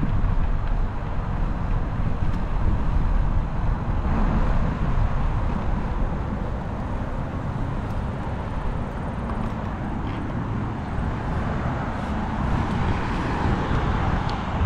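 Road traffic from cars passing on nearby roads, mixed with wind buffeting the microphone of a camera riding on a moving mountain bike. It is a steady rushing noise, heaviest in the low end.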